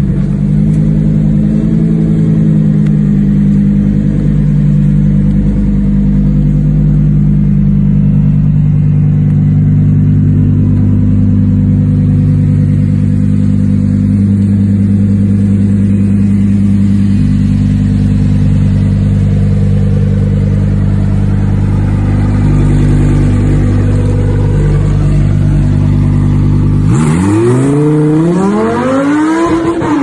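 Lamborghini Huracán's 5.2-litre V10 running at a steady, even engine note. Near the end it cuts to a car's engine revving hard in quick rising sweeps.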